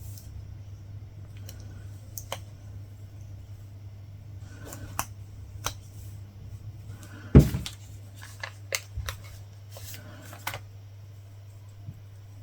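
Scattered small clicks and taps from latch hooking: the hook and its latch working yarn through the canvas. There is one louder knock about seven seconds in and a quick run of clicks soon after, over a steady low hum.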